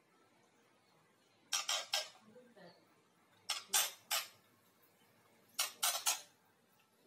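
Young white-rumped shama giving harsh, rasping calls: three bursts of three short notes, about two seconds apart.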